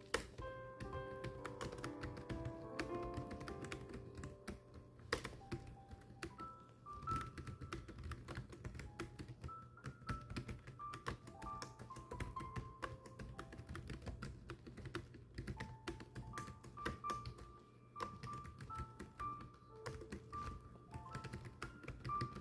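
Continuous rapid typing, a dense run of key clicks, over background music with a slow melody of held notes.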